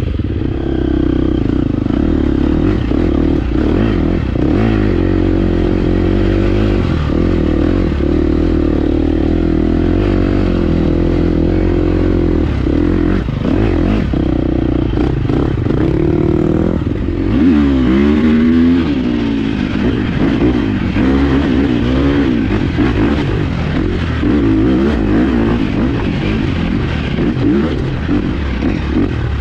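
2023 Husqvarna 350 FX's single-cylinder four-stroke engine under way on a dirt trail, holding a fairly steady note for about the first half, then revving up and down repeatedly through the second half.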